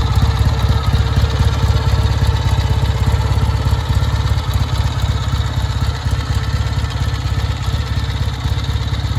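Kawasaki W1's 650 cc parallel-twin four-stroke engine idling steadily, with a rapid, even exhaust beat.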